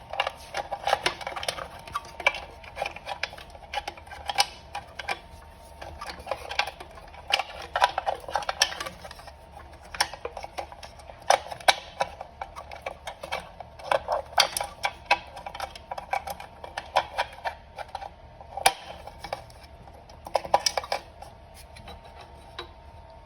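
Irregular clicks, taps and rustling of a battery power cable and its connector being handled and fed through a hole in an electric bike's battery casing.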